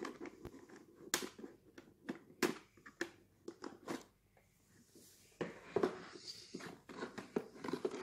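Handling noise from the plastic dust bin and filter of a Severin RB 7025 robot vacuum being taken apart: a string of light plastic clicks and knocks, with some rustling and scraping in the middle.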